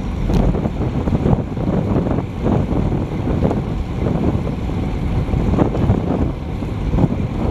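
Wind buffeting the microphone of a Garmin VIRB action camera on a bicycle moving at about 36 km/h: a low, uneven rush that keeps rising and falling.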